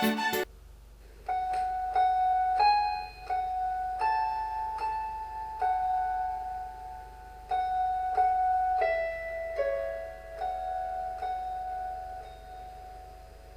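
Background piano music: a slow melody of single held notes, beginning about a second in after a short pause.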